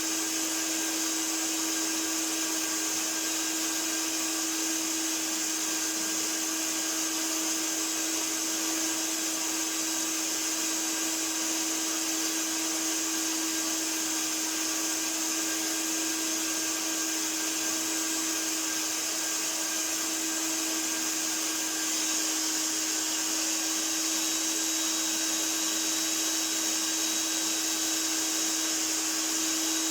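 A 1982 Hoover Powervac S4266 tub-type wet and dry vacuum cleaner running steadily: a constant motor hum under a loud rush of air, growing slightly louder about two-thirds of the way through.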